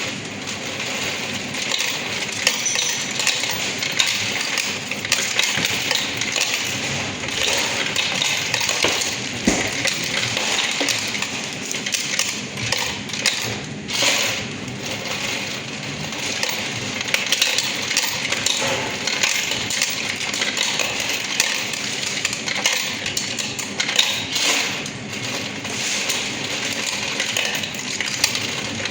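Coin counting machine running, a dense continuous rattle and clink of coins being fed through and counted, with small louder clatters scattered throughout.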